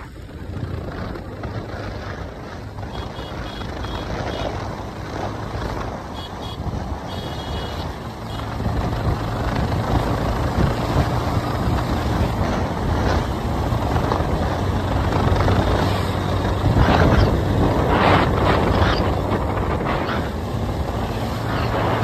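Motorcycle engine running at road speed with wind rushing over the microphone, growing louder after about eight seconds. A few short high beeps sound around three and seven seconds in.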